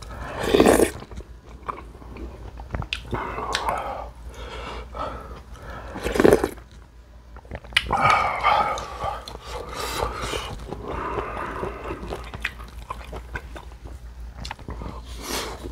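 Eating sounds: a loud slurp of soup from a spoon near the start, then chewing and smacking of a lettuce-wrapped bite. In between, a dog whines and barks, begging for food.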